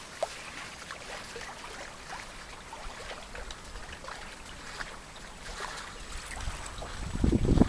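Water lapping and trickling along a sailboat's hull while under way, with small scattered splashes and one brief louder tick just after the start. Wind buffeting the microphone builds up near the end.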